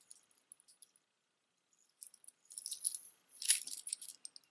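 Plastic beads and charms of a stretch bracelet clicking and rattling against each other as it is handled, quiet at first, then a run of quick clicks and clatters from about halfway through.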